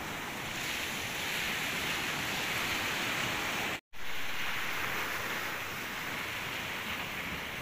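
Ocean surf washing onto a sandy beach, a steady rush of waves. The sound cuts out completely for an instant about four seconds in.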